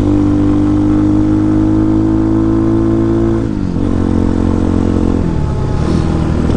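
Vitacci Apollo DB36 supermoto's 223cc single-cylinder overhead-cam engine running under way, its revs climbing slowly under throttle. About three and a half seconds in the revs drop and the engine runs lower and rougher. It is a brand-new engine, still being broken in and kept out of high revs.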